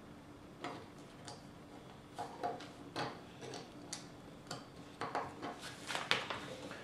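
Plastic Lego bricks clicking and tapping as they are handled and pressed together: irregular sharp clicks, a few a second, starting about half a second in. Near the end, a page of the paper instruction booklet is turned.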